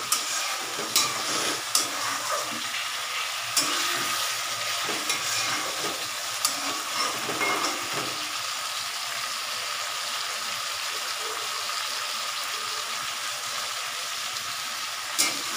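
Potatoes and masala sizzling steadily as they fry in oil in a kadai. A spatula stirs and scrapes, clicking against the pan several times in the first half, with another knock near the end.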